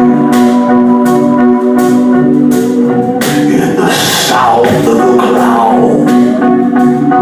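Instrumental passage of a rock song: held chords and guitar over a drum beat, with a wavering lead line about halfway through.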